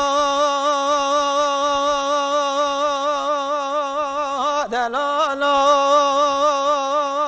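A man singing a Kurdish folk song unaccompanied, holding one long note with a wavering vibrato and breaking into a short dipping melodic turn about two-thirds of the way through before holding the note again.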